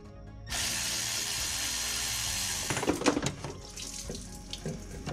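A steady rush of liquid pouring out, starting abruptly about half a second in and lasting about two seconds, most likely engine coolant running out as the water pump comes off. It is followed by a few sharp metal clanks of tools or parts.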